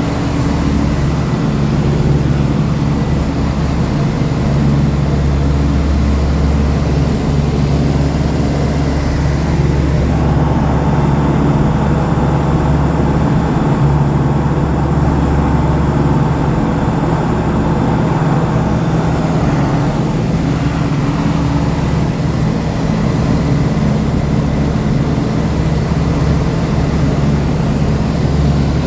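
Light aircraft's piston engine and propeller droning steadily.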